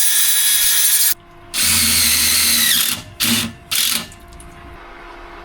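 Power drill running in bursts: a long run that stops about a second in, a second run whose whine drops as it winds down, then two short blips on the trigger.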